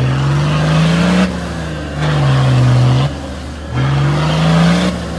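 Off-road SUV's engine revving up and dropping back in three surges about two seconds apart, the pitch climbing through the first and last, as the vehicle works its wheels through a muddy rut.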